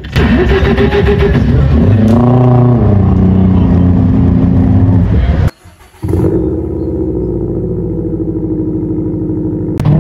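A man imitating a Subaru WRX STI with his mouth through a stage PA, revving the imitated engine up and back down. After a short break, a real Subaru WRX STI's turbocharged flat-four idles steadily through its quad-tip exhaust.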